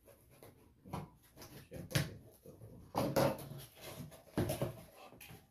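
A cardboard shipping box being opened by hand: a box cutter scraping through the tape, then the cardboard flaps rustling and an inner cardboard box dragged out, as a string of irregular scrapes and knocks.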